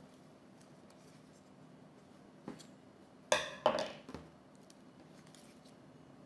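Kitchenware being handled: a light tap, then two sharp clinks in quick succession and a fainter tap just after.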